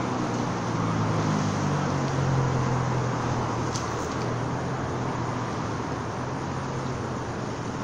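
Road traffic: a vehicle's low engine drone swells between about one and three seconds in and then fades slowly, over a steady rushing background.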